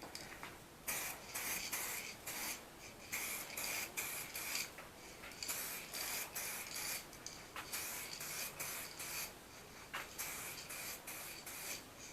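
2K clear-coat aerosol spray can hissing in many short, irregular bursts as light passes are sprayed on.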